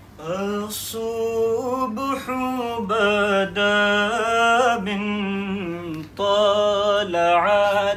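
A man's solo voice singing a devotional kalam unaccompanied, in long held notes that bend and ornament. There is a brief breath break about six seconds in.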